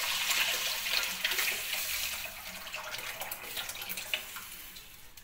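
Tamarind water pouring in a stream into a kadai of sautéed onions and tomatoes, splashing into the pan; the pour is heaviest at first and thins to a trickle toward the end.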